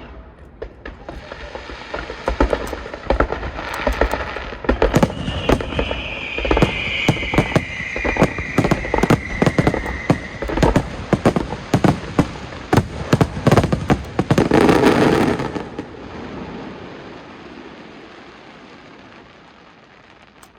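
Aerial fireworks shells bursting in quick succession, many sharp bangs building to a dense, packed volley about fourteen to fifteen seconds in, then dying away. A whistle falling in pitch runs for several seconds among the bangs in the middle.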